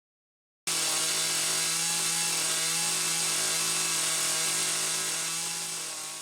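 Jonsered two-stroke chainsaw engine running at high revs with a steady pitch. It cuts in suddenly about half a second in and fades out near the end.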